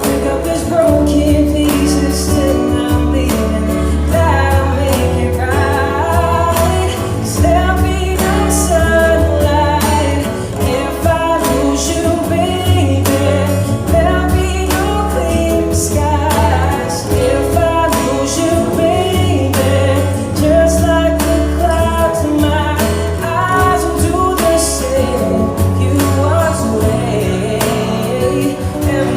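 Song with a sung melody over steady bass and instrumental backing.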